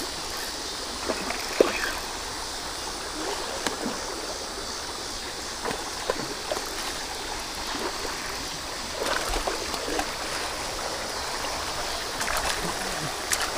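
Water trickling and lapping in a shallow ditch as a steady wash, with a few faint clicks scattered through it.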